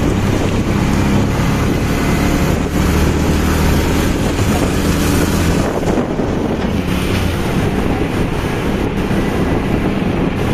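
Motorcycle taxi-cab's engine running steadily while it drives along, heard from inside the cab, with wind buffeting the microphone.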